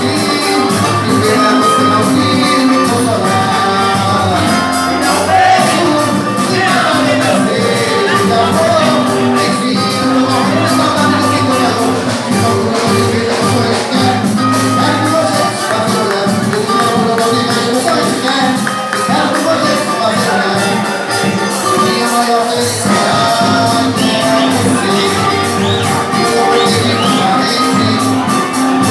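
Live band music in a Latin style, with a quick, steady percussion beat under pitched instruments, played without a break.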